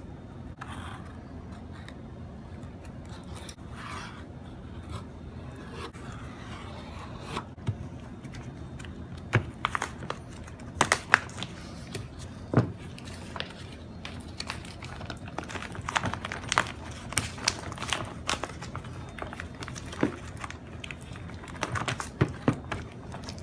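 Small metal parts and hand tools being handled at a workbench: scattered sharp clicks and clinks with some scraping and crinkling, sparse at first and busier from about ten seconds in. A steady low hum runs underneath.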